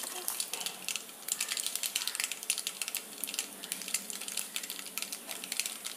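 Mustard seeds popping in hot coconut oil in a stainless steel pot: rapid, irregular crackling pops over a light sizzle as the seeds splutter during tempering.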